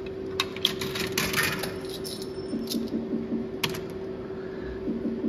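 A coin going into a Cristaltec bar slot machine, with metallic clinks and rattles from about half a second to a second and a half in. A few short low tones follow, then a single click, over a steady low hum.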